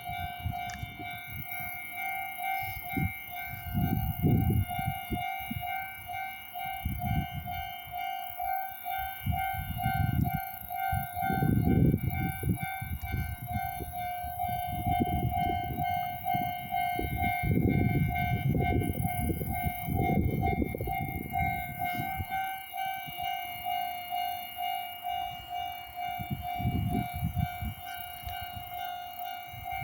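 Japanese railway level crossing warning bell ringing without pause, a steady, quickly repeated electronic ding-ding, with low rumbling noise coming and going underneath.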